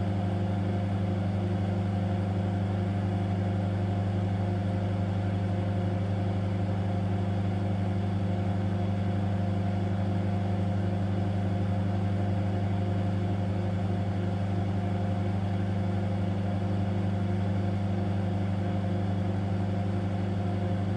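Microwave oven running: a steady, unchanging electrical hum with a strong low drone.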